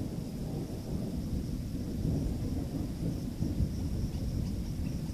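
Thunder rumbling low and continuously from a nearby thunderstorm, with no sharp crack.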